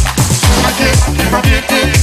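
Background dance music with a steady kick drum beat, about two beats a second, under synth melody lines.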